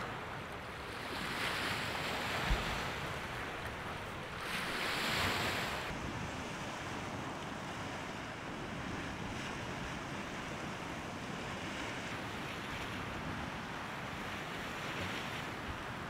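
Lake Baikal waves washing onto the shore, with wind. Two louder surges come in the first six seconds, then a steady wash.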